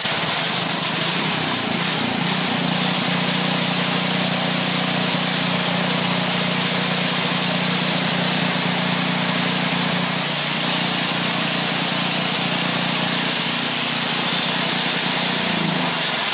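Briggs & Stratton 8hp OHV single-cylinder engine on a Craftsman snowblower, just started with a little choke, running steadily and loud; its speed drops near the end. It is running on used oil to flush out milky, water-contaminated crankcase oil, and runs really good.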